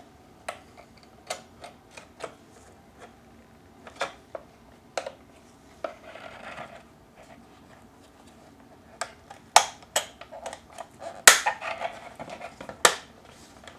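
Hard plastic clicks and taps from a map-light lens cover being handled and snapped back onto the overhead console assembly. The clicks are sparse at first and come thicker and louder in the last few seconds, with one sharp snap.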